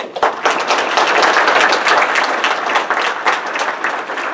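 Audience applauding, starting abruptly and easing off slightly near the end.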